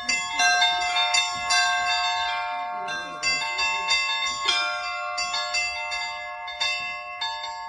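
A set of Russian church bells rung by a bell ringer: quick strikes on the smaller bells in an uneven rhythm over the long, steady ringing of the larger bells, the tones overlapping and sustaining between strokes.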